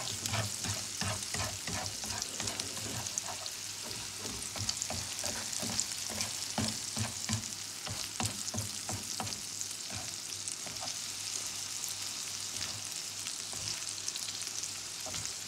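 Oil sizzling steadily in a frying pan under an egg, sausage and pepper omelette mixture, with a spatula scraping and knocking against the pan bottom in quick repeated strokes that thin out after about ten seconds.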